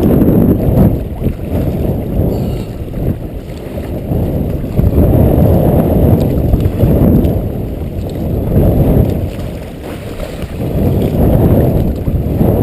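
Strong wind buffeting the microphone, a loud low rumble that swells and eases in gusts every few seconds.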